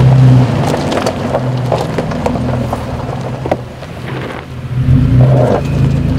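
2020 Toyota 4Runner TRD Pro's V6 engine running at low speed as it climbs a dirt and rock track, with stones crackling and knocking under the tyres. The engine note drops off briefly about four seconds in and comes back up about a second later.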